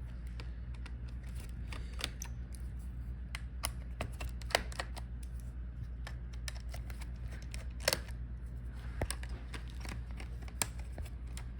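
Scattered small clicks and ticks of a screwdriver and small screws against a laptop's chassis as the hinge screws are taken out, over a steady low hum.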